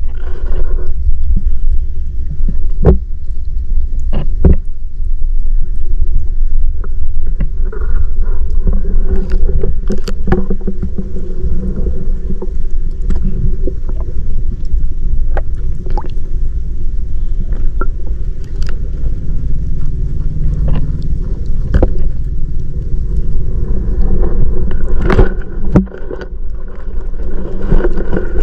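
Muffled low rumble of water heard by a GoPro held underwater inside its waterproof housing, with scattered sharp clicks and knocks.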